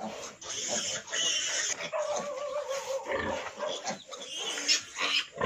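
Piglets squealing around a nursing sow, a continual overlap of high-pitched cries.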